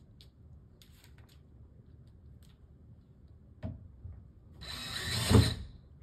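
A powered screwdriver runs for about a second near the end, driving a screw home into a door hinge. A few faint clicks come before it, and one sharp click shortly before it starts.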